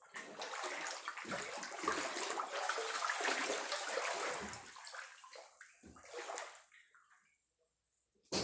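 Floodwater sloshing and splashing as someone wades through it, a splash with each step, dying away after about five seconds; a short sharp click near the end.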